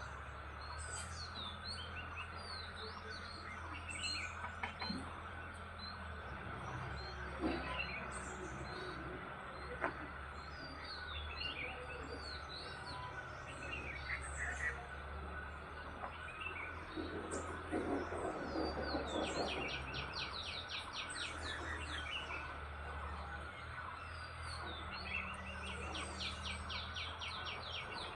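Several birds chirping and calling in a morning chorus: scattered short chirps, with two fast trills in the second half, over a steady low hum.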